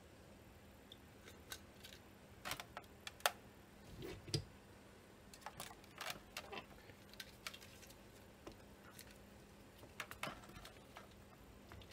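Scattered light clicks, taps and knocks of handling at an electronics workbench as a magnifier lamp is swung into place and a screwdriver is brought to a circuit board. They come in small clusters, the sharpest knock about three seconds in, over a faint steady hum.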